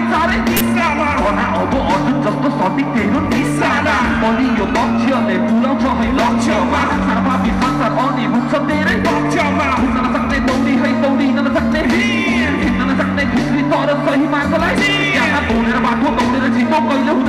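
Live rock band music played through a PA, with a steady bass line under a male vocalist singing into a handheld microphone.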